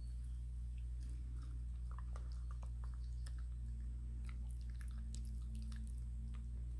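Small older dog, with several teeth pulled, chewing and lapping fresh food from a stainless steel bowl: irregular wet clicks and smacks. A steady low hum runs underneath.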